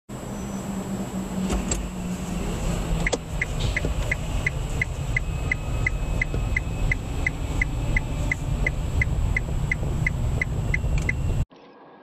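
Low steady rumble inside a stopped car's cabin, with a turn-signal indicator ticking evenly about three times a second from about three seconds in. The sound drops away abruptly near the end.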